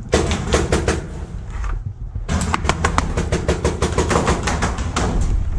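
Paintball marker firing in two rapid strings of shots, about nine a second. The second string starts after a brief pause about two seconds in and runs longer.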